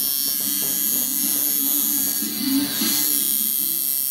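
Micky Sharpz Iron Nitro Dial coil tattoo machine, tuned as a liner, running with a steady electric buzz, really quiet for a liner. It is cycling at about 140 Hz, a bit fast.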